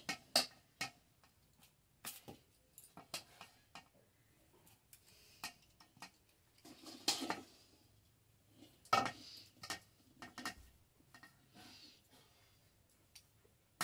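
Metal kitchen utensils, a kadhai and a thali plate, clinking and knocking at irregular moments, with a couple of louder clatters about halfway through.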